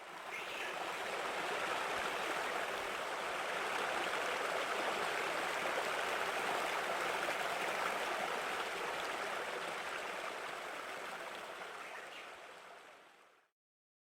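Water from a waterfall splashing and rushing steadily, fading in at the start and fading out near the end.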